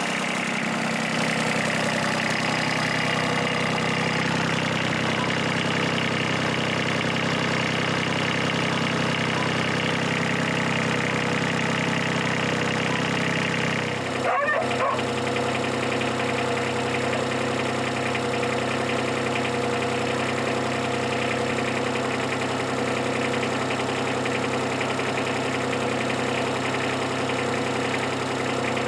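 Kubota F2400's small three-cylinder diesel engine idling steadily while it warms up, after sitting unused for years. About halfway through there is a short sound and the engine's tone shifts slightly.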